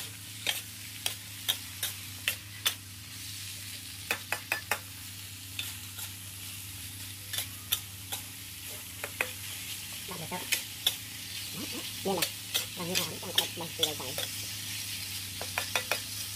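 Eel pieces stir-frying in an aluminium wok: a steady sizzle with a metal spatula scraping and clicking against the pan in irregular strokes.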